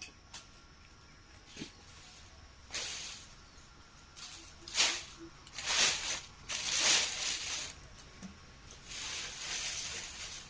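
Rustling of wampee branches and leaves being handled, in about five separate bursts, the longest near the end lasting about a second and a half.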